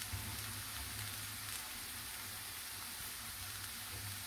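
Steady, faint sizzling of flat beans and peas cooking in a pan, over a low hum.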